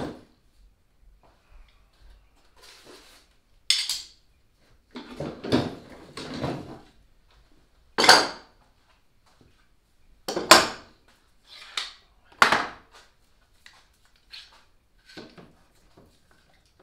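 Metal woodworking clamps clanking and knocking as they are set down and fitted around the edge of a freshly glued two-layer plywood transom, in separate sharp clanks every second or two with quiet between.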